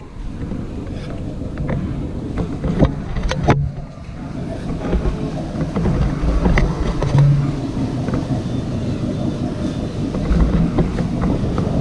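Small boat's engine running under way, a steady low rumble mixed with wind on the microphone and a few sharp knocks in the first few seconds.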